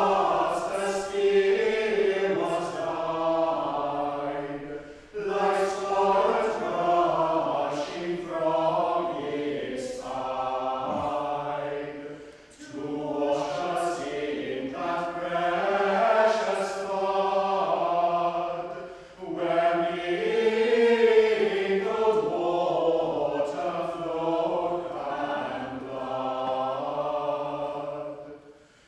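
Group of voices singing a chant in unison, in long phrases with short breaks between them, ending just before the close.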